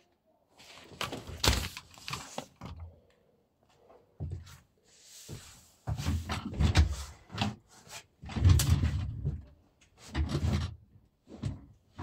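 Handling noises close to the microphone: an irregular run of thumps and knocks with rustling between them, as things on the desk and the recording phone are moved and set down.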